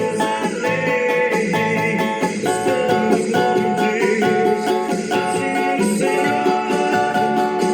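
Cavaquinho playing a hymn melody: a steady run of plucked, bright notes.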